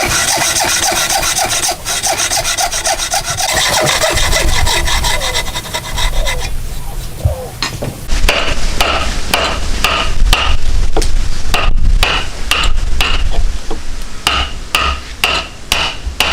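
A hand tool rasping and scraping on wood: a fast continuous run of strokes for the first six seconds or so, then after a short lull separate strokes at about two or three a second, each with a slight metallic ring.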